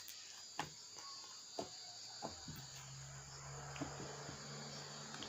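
Soft homemade slime being stretched and pressed to blow a bubble: faint sticky clicks and pops, roughly one a second, over a steady faint hiss.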